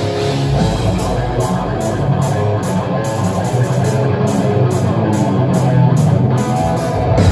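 Heavy metal band playing live: distorted electric guitar over bass and drums, the low end swelling louder near the end.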